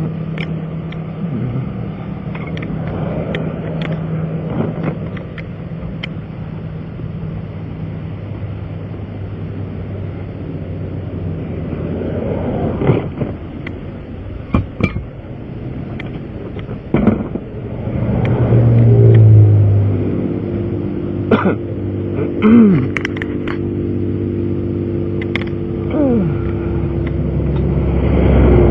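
Vehicle engine idling, with road traffic passing on the highway and a louder swell about two-thirds of the way through. Scattered clanks and knocks of tools and equipment being packed away.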